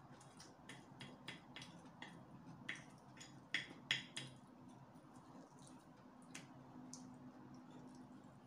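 Chopsticks clicking against a plate: a run of light, sharp clicks over the first four seconds or so, the loudest pair about three and a half to four seconds in, then only a few faint ticks.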